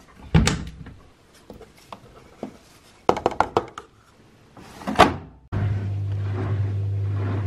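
Front-loading washing machine door pushed shut with a thunk, then a quick run of clicks and a sharp clack as the detergent drawer is worked. A steady low hum starts abruptly near the end.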